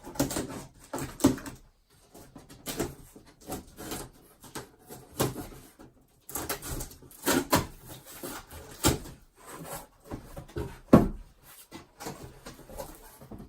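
Cardboard shipping box being opened and shoe boxes handled inside it: a string of scrapes, rustles and knocks, with one sharper knock about eleven seconds in.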